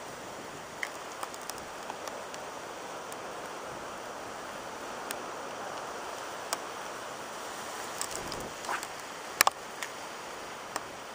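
Steady hiss of hurricane rain and wind over a lake, with scattered sharp taps, the loudest a quick pair about nine seconds in.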